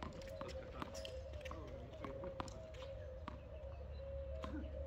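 Faint outdoor ambience: a steady hum over a low rumble, with faint sharp knocks about once a second.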